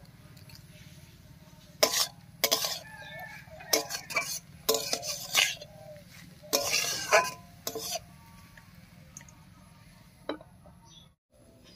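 Steel spatula scraping and clinking against an aluminium karahi while stirring shredded banana stem, in a series of strokes from about two to eight seconds in. Near the end comes one short metallic knock as a lid is set on the pan.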